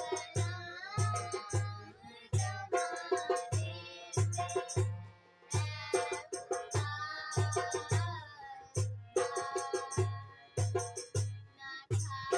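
Two girls singing an Urdu Christian song (masihi geet) together to a hand drum, with a steady beat of deep drum strokes and sharp slaps between them.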